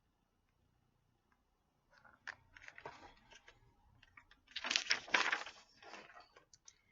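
Paper rustling and crinkling as a picture book's page is handled and turned: a few light clicks, then a louder crackly rustle about halfway through.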